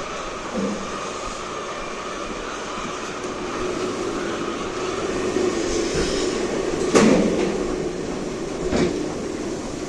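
Steady mechanical hum in a poultry house, with a loud bang of a door being worked about seven seconds in and a lighter knock near nine seconds.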